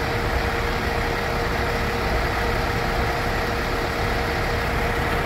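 Scania K410CB bus's diesel engine idling steadily, a low rumble with a steady whine above it.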